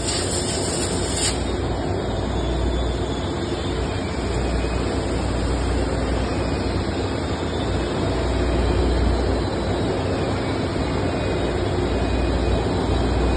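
Hydraulic compression-molding press running with a steady low hum and broad machine noise while it holds the mold closed. A higher hiss drops away about a second in.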